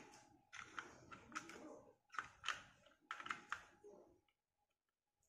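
Hard plastic toy parts clicking and rattling as a wheel is handled and pushed onto the axle of a plastic toy tractor: a run of small irregular clicks that stops about four seconds in.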